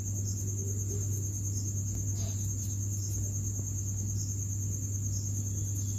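Crickets trilling steadily in the background, over a low steady hum.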